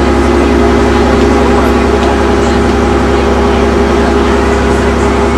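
A large engine running steadily at a constant speed: a deep, even drone with a steady hum over it.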